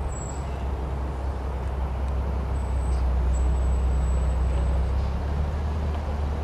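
Low, steady rumble of an approaching train's diesel locomotive, growing slightly louder.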